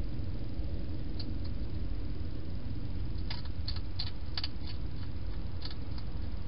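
Hedgehog eating at a feeding bowl: a loose run of short, crisp crunching clicks, mostly in the second half, over a steady low rumble and hiss.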